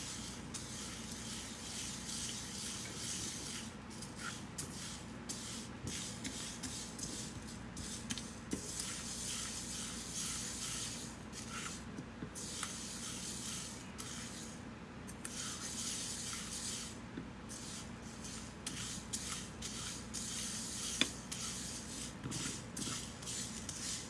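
Whole mustard, fennel and nigella seeds being dry-toasted in a frying pan and stirred with a silicone spatula. The seeds make a dry rustling scrape as they slide over the pan, stroke after stroke, with short pauses between strokes and a few light clicks.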